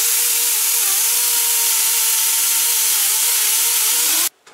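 Shop compressed air blowing hard from an air nozzle: a loud hiss with a steady whistling tone that sags briefly twice, then cuts off sharply near the end. It is used to blow engine parts clean before reassembly.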